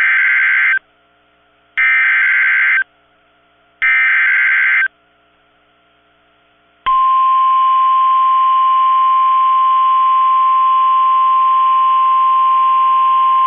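NOAA Weather Radio SAME alert header: three one-second bursts of digital data screech, about a second apart. About seven seconds in, the steady 1050 Hz warning alarm tone starts, signalling that an urgent warning, here a severe thunderstorm warning, is about to be read.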